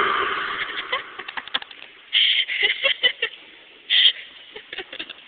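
A long, drawn-out burp echoing around the room, tailing off about a second in, followed by a scatter of clicks and short loud bursts of sound about two and four seconds in.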